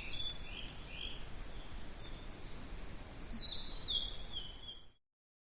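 Outdoor ambience: a steady high-pitched insect drone with birds calling in short falling whistles, first at the start and again after about three seconds. It all fades out quickly near the end.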